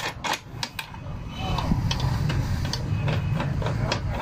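Light clicks and knocks of the plastic and metal parts of a sliding angle grinder stand being handled, its clamp knob and lead screw worked by hand, the clicks closest together in the first second.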